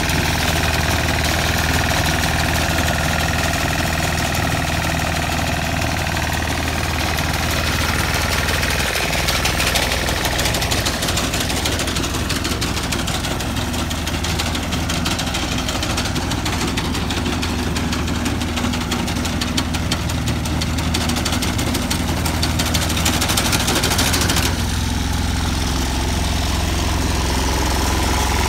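Engine of a walk-behind tractor reaper running steadily under load as its front cutter bar mows tall palmarosa grass.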